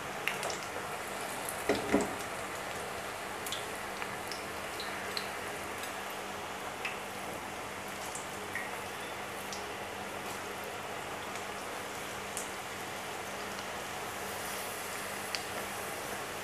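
Spinach pakoda batter deep-frying in hot oil in a steel kadai: a steady sizzle with scattered crackles and pops, and a few louder knocks about two seconds in. The oil is foaming up, the sign that it is hot enough for crisp pakodas.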